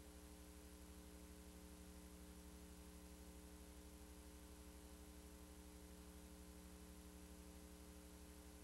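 Near silence: a faint, steady electrical hum with hiss, and no event standing out.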